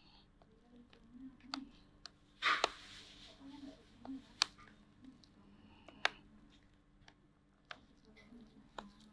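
Plastic bottom case of an Advan Soulmate 1402 laptop being pried at along its seam: scattered sharp clicks and taps, with a short scraping rustle about two and a half seconds in and louder clicks around four and six seconds in.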